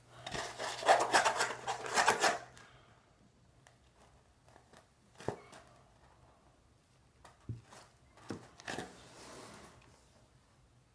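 A bottle being squeezed by hand, crackling and crinkling for about two and a half seconds, followed by a few scattered soft taps and clicks of handling.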